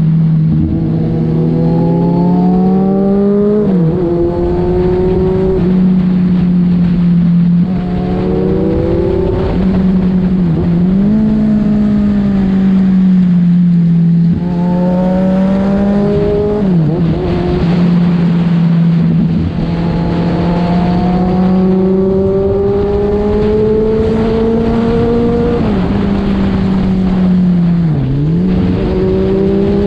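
Kawasaki Z1000's inline-four engine heard from the rider's seat, accelerating hard with its pitch climbing, broken by several brief dips where the rider shifts gear or rolls off the throttle. Wind rushes steadily underneath.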